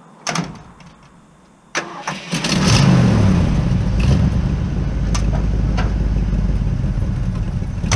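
Ford 390 V8 in a 1974 F-350 wrecker being started: a brief burst, then about two seconds in the starter cranks briefly and the engine catches and keeps running steadily.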